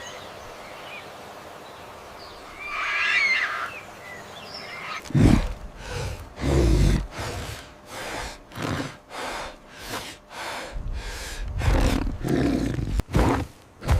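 A short, shrill, wavering animal cry about three seconds in, followed from about five seconds by a rapid run of heavy thumps with low rumbling between them.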